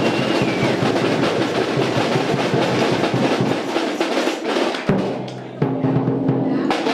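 Drums playing a fast, steady beat. There is a sharp hit about five seconds in, and the drumming is thinner after it.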